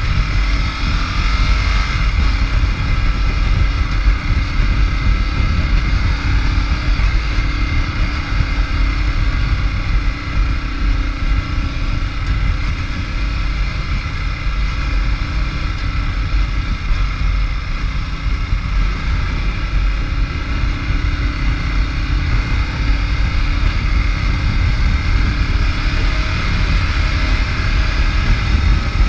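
Ducati Multistrada's V-twin engine running steadily at a moderate cruise, under heavy wind rumble on the camera microphone.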